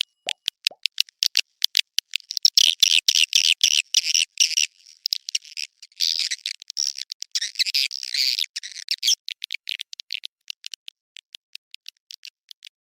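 Swiftlet lure call: rapid high chirps and clicks that thicken into dense twittering twice, about two seconds in and again around the middle, then thin out to scattered ticks near the end. It is a call made to draw young swiftlets.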